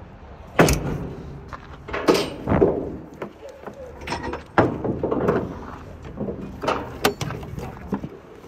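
A series of sharp metal clanks and knocks, loudest about half a second in and again just before the five-second mark, as a black metal plate on a compact tractor's front frame is moved by hand, with some rattling in between.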